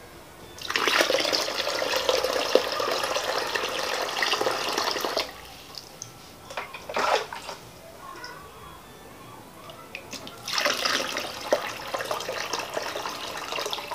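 Water poured from a metal pot into a glass aquarium tank, splashing onto the rocks and gravel: two steady pours of about four seconds each, with a few short splashes and knocks between them as the pot is refilled.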